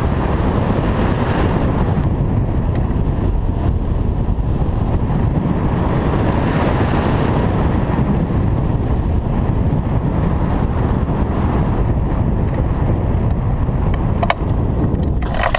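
Steady, loud rush of wind over a hang glider's camera microphone as the glider flies low on its approach to landing, with two short sharp clicks near the end.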